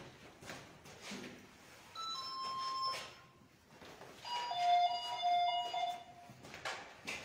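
An electronic ghost-hunting device giving off two bursts of chiming beeps, several pitches sounding together, the second burst longer and louder.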